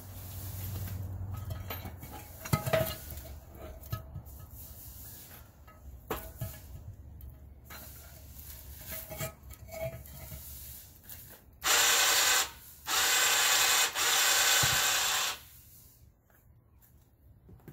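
Battery-powered 2,500 lb electric winch on an engine hoist running in two bursts about two-thirds of the way through, a short one and then a longer one of about two and a half seconds, with the axle hanging on its cable. Before that come scattered knocks and scrapes as cinder blocks and chain are handled.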